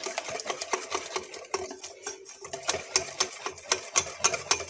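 Metal wire whisk beating thick chocolate cake batter in a glass bowl, the wires clicking against the glass about four times a second, over a faint steady hum.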